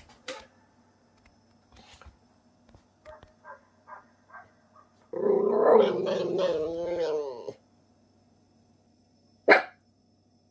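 Miniature Pinscher growling: one loud, drawn-out growl of about two and a half seconds midway, nervous at a bigger dog barking outside. A few faint short barks come before it, and there is a single sharp sound near the end.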